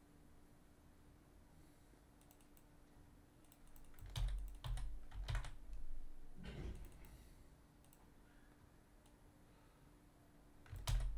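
Computer keyboard typing in a few short spells, about four seconds in and again near the end, with quiet between.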